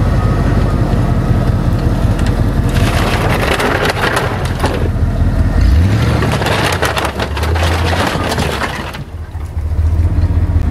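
Ford F-150 pickup engine running as it pulls a chained load of rusty corrugated steel culverts and old engines off its flatbed. The metal scrapes and crashes off the bed in a long clattering slide from about three seconds in to about nine seconds in.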